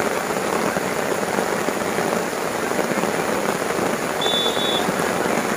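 Heavy rain falling in a steady hiss, with a brief high tone about four seconds in.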